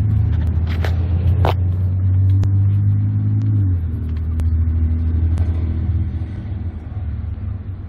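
A steady low mechanical hum that shifts down and changes character about three and a half seconds in and weakens near the end, with a few sharp clicks over it.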